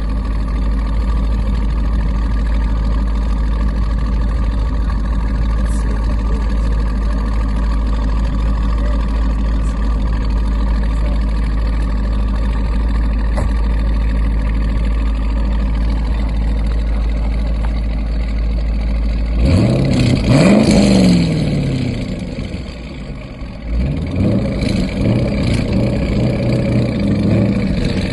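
Chevrolet Corvette C5 Z06's LS6 V8 running through Corsa Extreme mufflers: a steady rumble, then about twenty seconds in a single throttle blip whose revs rise and fall back, after which the engine settles to idle.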